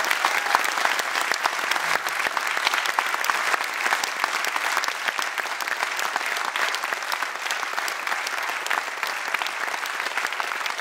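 Audience applauding: many people clapping at once, steadily.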